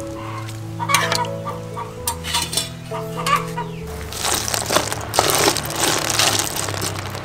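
Background music with sustained notes and a few short sharp sounds. From about four seconds in, a metal spoon scrapes and rattles through a tray of tiny clam shells on a metal tray.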